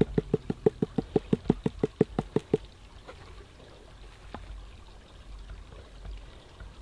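Rapid, even tapping on a gold pan, about six taps a second, stopping after about two and a half seconds; faint water sloshing and trickling follows.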